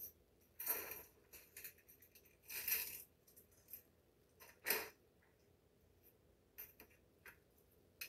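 Faint, scattered clicks, taps and short rustles of kitchen handling: fruit pieces dropping into a plastic blender cup and items being knocked and set down on the stovetop.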